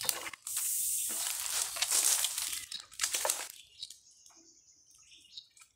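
Mango leaves and twigs rustling as a long bamboo pole is pushed and wiggled through the dense canopy, dying down about three and a half seconds in.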